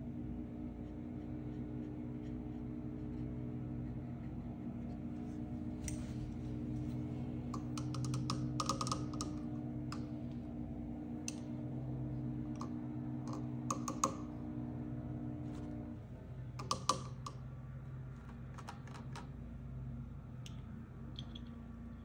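Scattered clusters of small clicks and taps over a steady low hum; part of the hum stops about three-quarters of the way through.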